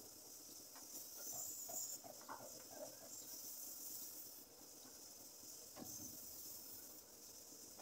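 Faint open-air boatyard ambience: a steady high hiss with a few faint, distant short calls early on and a single soft knock about six seconds in.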